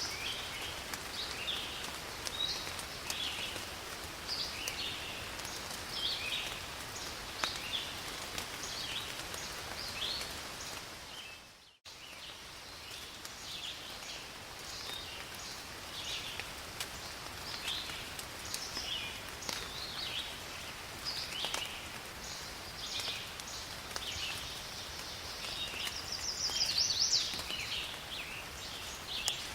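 Steady forest rain under many short, high chirping animal calls repeating throughout. The sound drops out for a moment about twelve seconds in, and a louder flurry of calls comes near the end.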